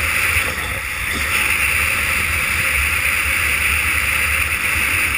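Steady rush of wind and rolling road noise picked up by a GoPro Hero2 travelling fast down a paved hill on a longboard run, dipping briefly about a second in.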